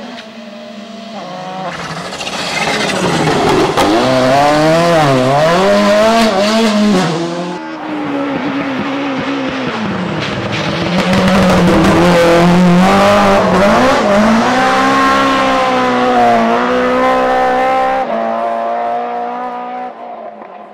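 Rally cars driven flat out on a special stage, one after another: engines revving high, the pitch swooping up and down as the drivers lift and change gear, growing loud as each car passes. The sound fades away near the end.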